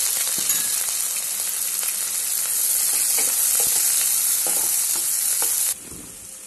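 Chopped onions sizzling in hot oil in a pan, just added and being stirred with a perforated steel spoon that scrapes the pan several times. The loud sizzle cuts off abruptly near the end.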